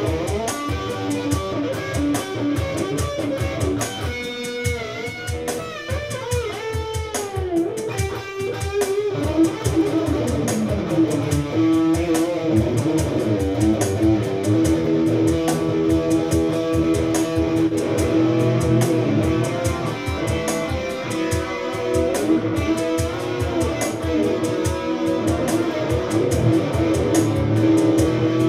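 Electric guitar played through an amplifier: improvised lead lines with string bends and slides about four to nine seconds in, then sustained held notes and picked phrases. The tone is from the neck pickup, dark but with definition.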